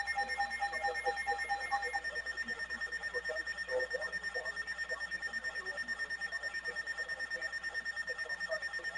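Weather alert radio receiver's alarm beeping, a high electronic tone pulsing rapidly and evenly, about six beeps a second, sounding for an incoming weather alert. A second, lower beeping stops about two seconds in.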